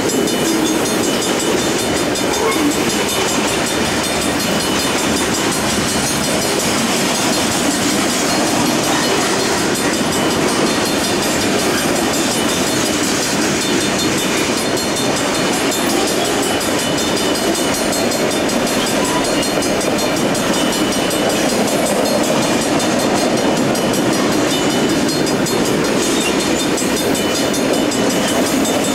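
Mixed freight cars of a Wisconsin Central train rolling steadily past: the continuous noise of steel wheels running on the rails.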